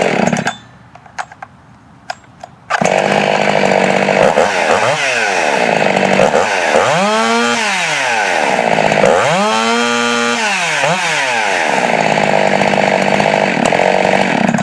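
Ported 71cc Jonsered 2171 two-stroke chainsaw running at high revs. About half a second in it goes quiet for a couple of seconds with a few clicks, then runs again, its pitch rising and falling three times, and cuts off suddenly at the end.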